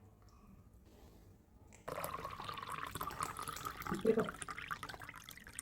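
Water starts running suddenly about two seconds in and keeps up as a steady splashing stream.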